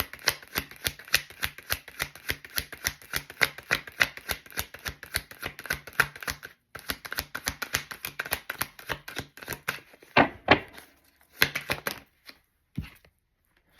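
Tarot deck being shuffled by hand, a quick, even run of card slaps about six or seven a second. The shuffling stops about ten seconds in, followed by a few louder rustles of the cards.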